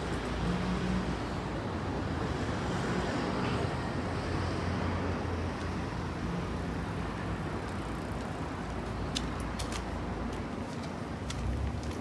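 Steady city street traffic: cars passing with a low engine rumble, and a few sharp clicks near the end.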